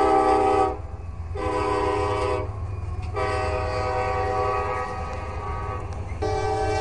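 Diesel locomotive's multi-chime air horn blowing long blasts, broken by short pauses about a second in, around three seconds in and near the end, over the low rumble of a passing freight train.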